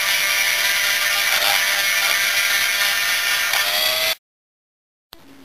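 Dremel rotary tool spinning a bluestone grinding stone against the aluminium exhaust port of a Yamaha Blaster two-stroke cylinder, a steady high motor whine over a grinding hiss. Its pitch rises a little just before it cuts off abruptly about four seconds in.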